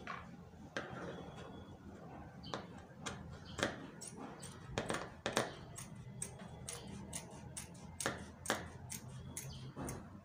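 Scissors snipping through a sheet of leather along a traced line: a run of short, sharp cuts at uneven spacing, about two a second.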